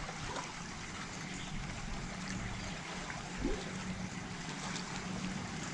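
Low, steady lakeside ambience: lake water lapping and trickling against a wooden dock.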